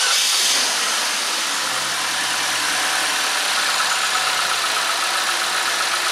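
2012 Chevy Equinox's 2.4-litre Ecotec four-cylinder engine idling steadily on freshly fitted spark plugs. The sound comes in suddenly at the start and then holds even.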